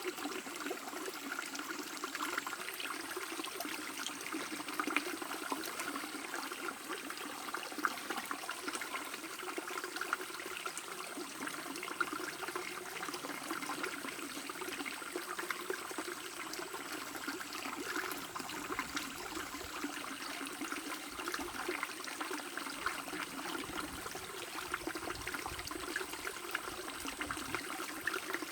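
Shallow stream babbling and trickling steadily over stones, with many small splashes.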